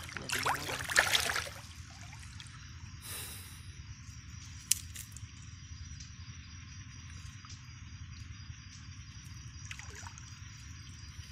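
Water splashing and sloshing as a wet cast net is hauled by hand through shallow pond water, loudest in the first second and a half, then faint dripping and trickling. A single sharp click near the middle.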